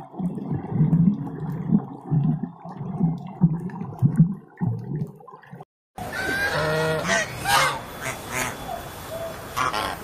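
Irregular low pulsing sounds, then after a short break a flock of waterfowl calling with repeated honks.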